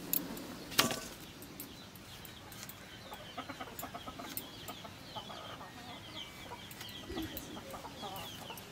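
Chickens calling in a steady run of short, high peeps, several a second, with a single sharp click about a second in.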